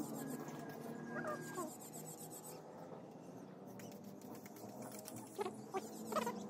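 Faint animal calls: a few short yelps or chirps near the end, over a steady low hum.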